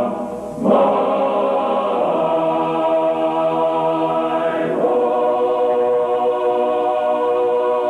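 A choir singing long held chords, with a new chord coming in about a second in and another about five seconds in.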